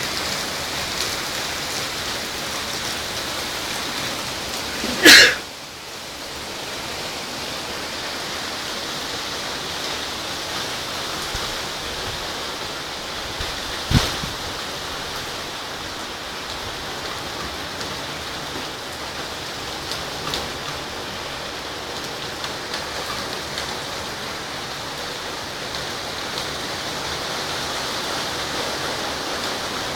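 Heavy rain pouring steadily during a thunderstorm. About five seconds in, a sudden loud crack briefly stands out above the rain, and a shorter sharp knock follows about fourteen seconds in.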